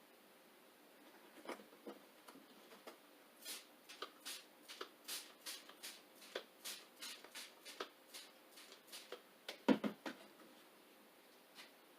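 Irregular run of small clicks and rustles from handling a vinyl windshield decal and its tape on wet glass, with one louder knock just before the end.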